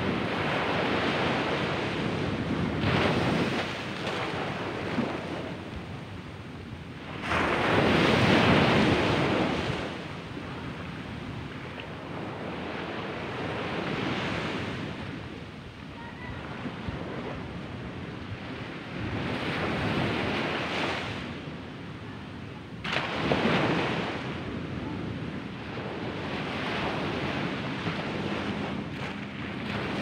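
Small ocean waves breaking and washing up a sandy beach. The surf surges and fades every few seconds, with the loudest wave about eight seconds in and another sharp one a little past twenty seconds.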